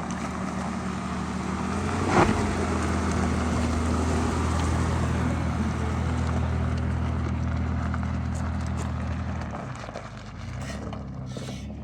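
Mitsubishi Montero's engine running steadily at low speed on a dirt trail, with a sharp knock about two seconds in. The engine sound drops away near the end.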